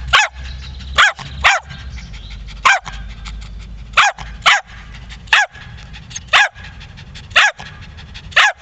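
Jack Russell terrier barking repeatedly up at its owner: about ten sharp, high barks, often in quick pairs, roughly one a second.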